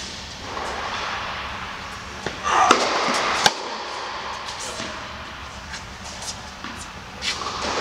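Tennis rally on an indoor court: a series of sharp pops from rackets striking the ball and the ball bouncing, echoing in the hall. The loudest hits come about halfway through.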